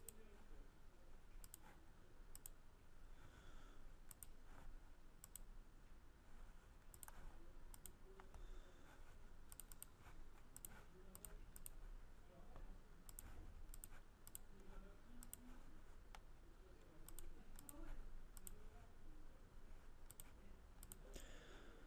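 Faint computer mouse clicks, irregular and often two close together, as keys of an on-screen calculator are clicked to enter numbers, over a low hum.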